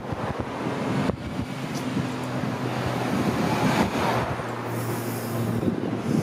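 Street traffic noise, with a vehicle engine's steady low hum starting about a second in and dropping away near the end.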